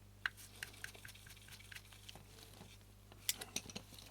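Faint, sparse clicks and ticks of a small screw being turned into a metal lens housing with a small screwdriver, with a quick cluster of clicks about three seconds in.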